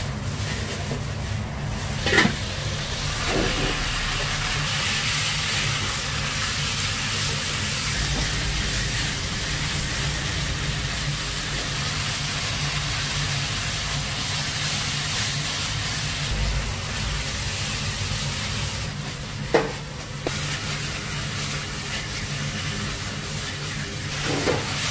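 Food sizzling and being stirred on a hot pan or griddle, a steady hiss over a steady low hum, with two sharp knocks, one about two seconds in and one near the end.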